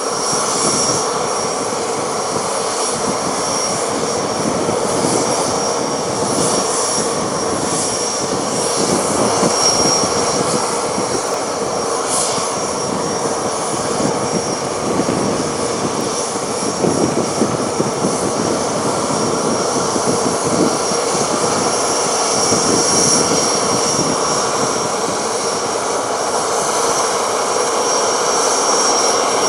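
Boeing F/A-18F Super Hornet's twin General Electric F414 turbofan engines running at low power while taxiing, a steady jet rumble with a thin high whine that swells and fades.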